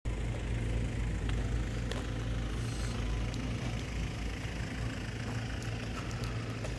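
Ford Transit van's diesel engine idling steadily.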